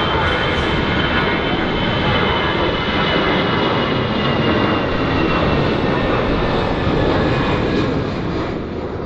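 Airbus A330 twin-engine jet airliner landing, its engines giving a loud, steady rush with a high whine that slowly falls in pitch, easing off near the end.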